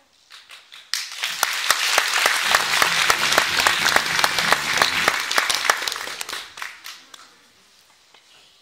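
Audience applauding, starting suddenly about a second in and dying away over the last couple of seconds.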